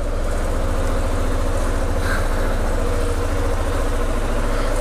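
KTM 690 supermoto's single-cylinder four-stroke engine running steadily at low revs, an even, fast pulsing note with no revving.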